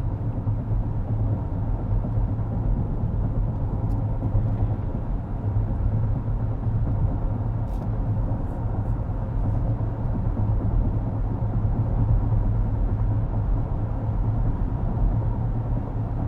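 Steady low road and tyre rumble heard inside the cabin of a 2023 Acura MDX while driving, with a few faint clicks.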